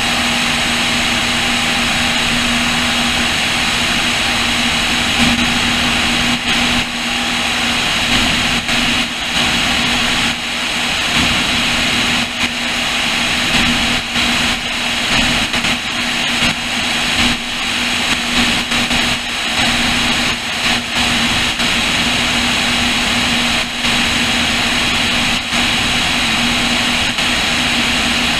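Cessna O-2A in cruising flight: its two Continental IO-360 engines and propellers, one in front and one behind in push-pull, droning steadily, mixed with heavy wind rush over the wing-mounted camera. From about six seconds in, the sound keeps dipping for short moments.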